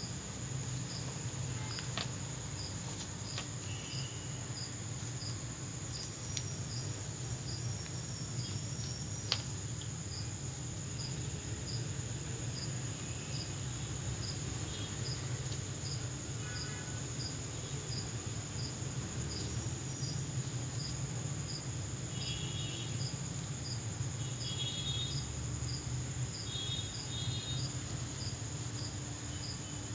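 Crickets chirping at night: a steady high-pitched trill with a second regular chirp repeating a little under twice a second, over a low steady hum and an occasional faint knock.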